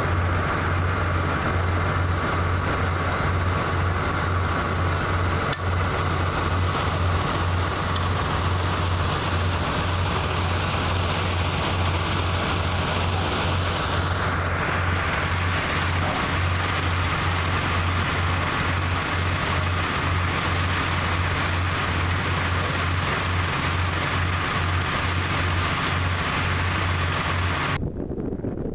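Ship's machinery running steadily during a cargo-net hoist: a low, pulsing engine drone under a higher whine. The whine rises in pitch about halfway through, and the machinery sound cuts off just before the end.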